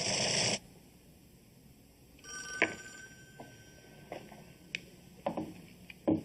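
A short burst of noise cuts off about half a second in. About two seconds in, a telephone gives one short electronic ring, and a few light clicks and knocks follow.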